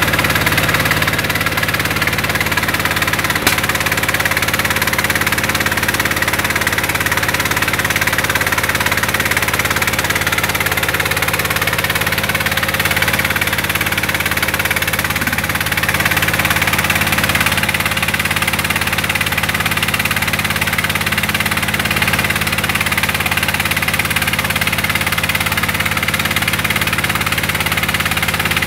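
Mobile rice-milling machine running steadily while husking paddy: a constant engine drone under a dense, even hiss.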